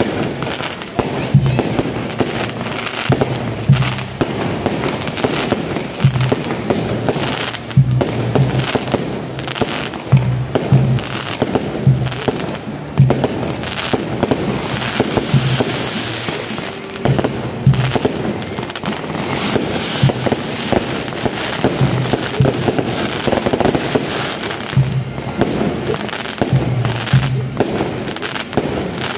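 Fireworks going off in rapid sharp cracks and bangs throughout, over music with a steady low drum pulse.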